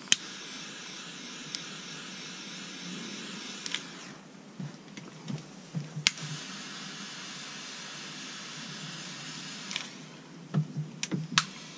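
Pocket butane torch clicked alight twice, each time burning with a steady hiss for about four seconds before going out. A few sharp knocks of handling near the end.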